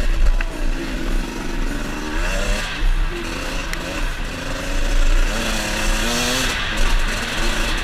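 KTM 250 XC-W two-stroke enduro engine under way on a dirt trail, revving up and easing off in surges as the throttle is worked. The pitch climbs about two seconds in and again about five seconds in.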